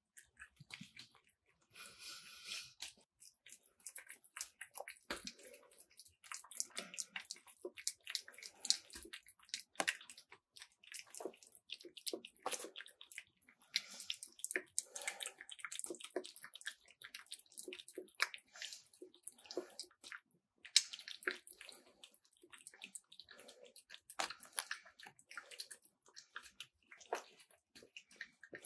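Cat eating wet food from a bowl close to the microphone: wet chewing and lapping, a stream of short, irregular clicks.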